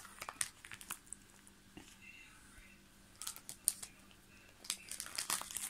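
Plastic pocket pages of a trading-card binder being turned by hand, the sleeves crinkling and rustling in short bursts three times: at the start, past three seconds in, and near the end.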